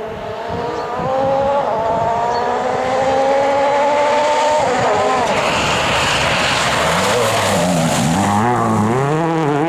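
Rally car engine at full throttle, its pitch climbing steadily for about three and a half seconds and then dropping sharply at a lift or gear change. A stretch of tyre noise follows, and near the end the engine note rises and falls repeatedly as the car brakes and turns.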